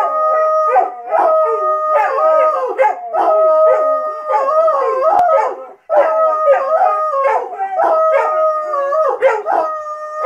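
Irish Wolfhound howling: long, wavering howls held one after another, with a brief break about six seconds in.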